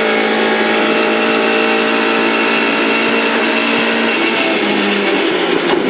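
Lada 2101 rally car's four-cylinder engine heard from inside the cabin, running hard at high revs with a steady note. About four seconds in, the note breaks and drops lower.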